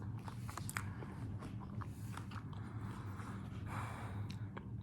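Close-miked chewing and crunching of hard-shell tacos: a run of small, irregular crunches and clicks.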